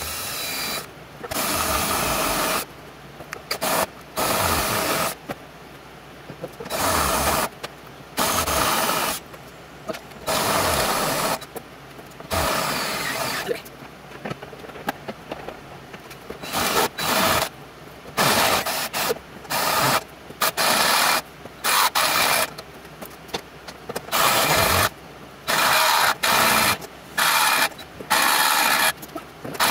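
Cordless DeWalt drill boring into steel square tubing, run in repeated bursts of about a second or two that stop and start again many times as the bit works through the metal.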